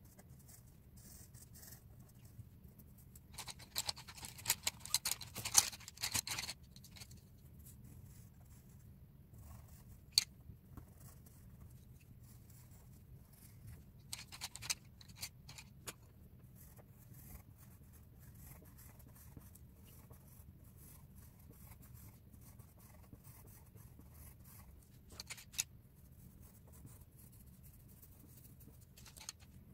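Coloured pencil scratching as it shades on paper, under a low steady hum. About four seconds in, a louder burst of rustling and tapping lasts a few seconds, and a few short sharp clicks come later.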